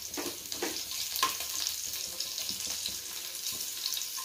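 Cumin seeds, mustard seeds and chopped green chilies sizzling in hot oil in a kadai, with a spatula stirring and scraping against the pan; a few sharper scrapes stand out over the steady hiss.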